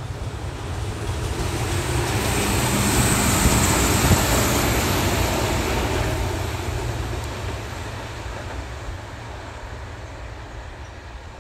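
Adelaide Metro 3000-class diesel railcar passing close by: engine and wheel noise build to a peak about three to four seconds in, then fade away as it recedes. A low wind rumble on the microphone runs underneath.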